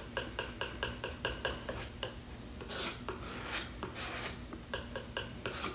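Oil paint being mixed on palette paper: a quick run of short scraping strokes, about four a second, with a few longer drawn scrapes near the middle.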